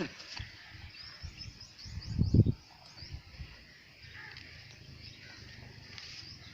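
Small birds chirping in outdoor farmyard ambience, with a brief low rumble about two seconds in.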